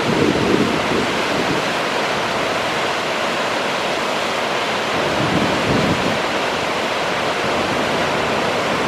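The Great Falls of the Potomac River: whitewater rushing over rock ledges and drops, a steady, unbroken rushing noise.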